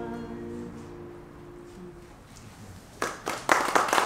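The last chord of an acoustic guitar rings out and fades. About three seconds in, an audience starts applauding.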